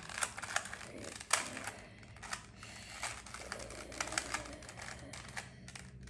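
A 2x2 Rubik's cube being turned by hand during a solve: its plastic layers click quickly and irregularly, several clicks a second.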